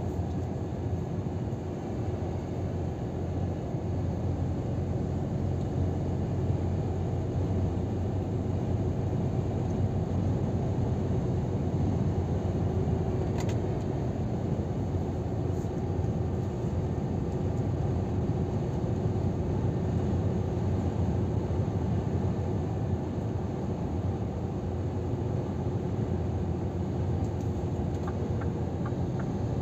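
Scania R500 truck cruising at speed, heard from inside the cab: a steady low drone of engine and road rumble. A light, evenly spaced ticking starts near the end.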